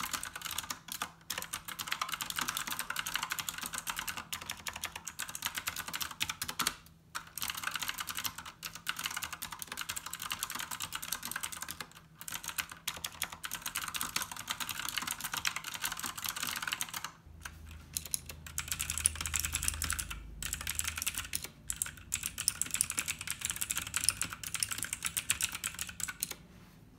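Fast typing on mechanical keyboards, a dense clatter of keystrokes with short pauses. First comes a retro typewriter-style keyboard with round keycaps, then a pink mechanical keyboard.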